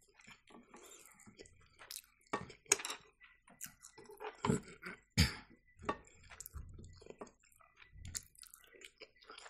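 Metal fork clinking and scraping against a ceramic serving dish while cutting into turkey rolls in sauce, in irregular sharp clicks. Wet chewing and mouth sounds come in between.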